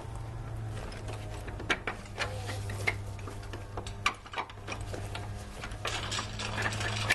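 A flat-head screwdriver prying at a plastic push-pin clip on a car's radiator support: irregular clicks and scrapes of metal on plastic as the clip is worked up, over a steady low hum.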